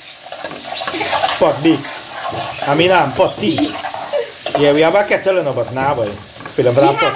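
Chopped onion, garlic, pimento and hot pepper sizzling in oil in a metal pot while a metal spoon stirs and scrapes them around, with pitched, voice-like sounds coming and going several times over the top.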